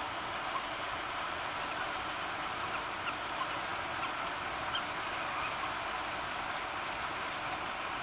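Steady rush of flowing shallow river water, with a few faint, brief high chirps or ticks scattered through it.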